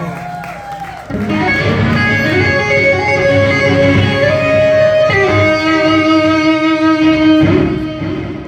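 Live rock band playing, led by electric guitar holding long sustained notes that step to a new pitch every second or two. The band comes in louder and fuller about a second in.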